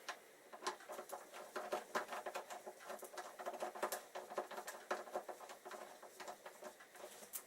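Quick, irregular light metallic clicks and rattles from hand tools working on a motorcycle front brake caliper's bolts.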